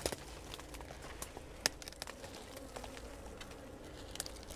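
Light scattered crackles and clicks of dry bark and brush being handled and stepped on at a pine trunk, with one sharper click about a second and a half in.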